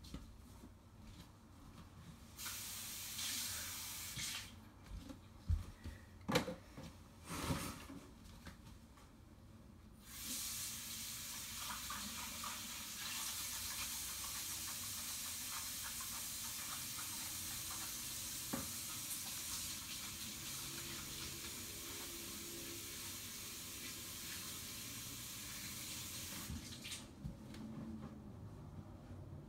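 Running water, a steady hissing rush: a short spell a few seconds in, then a long one starting about a third of the way through that stops shortly before the end, with a few sharp knocks in between.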